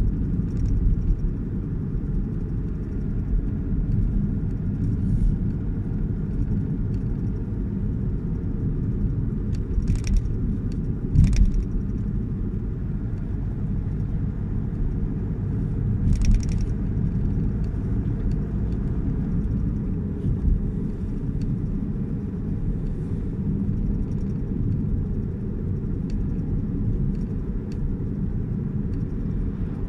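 A car driving, heard from inside the cabin: a steady low rumble of engine and tyre noise, with a few short knocks or rattles about ten, eleven and sixteen seconds in.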